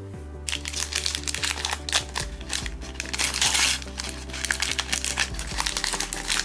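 A small pink foil surprise bag crinkling as it is opened by hand, starting about half a second in, over background music.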